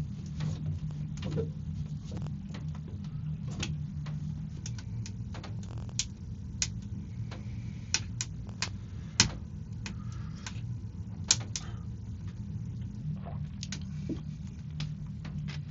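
Wood fire crackling in a stove: irregular snaps and pops, a few of them louder, over a steady low rumble.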